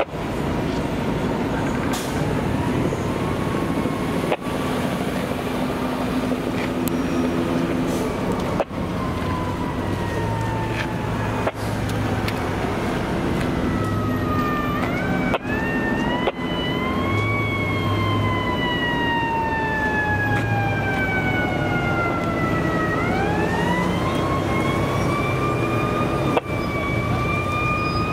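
Fire department pickup truck's siren wailing in slow sweeps, pitch falling gradually and then rising again, faint at first and much louder from about halfway through. Steady rumble of idling and creeping traffic underneath, broken by a few brief cuts.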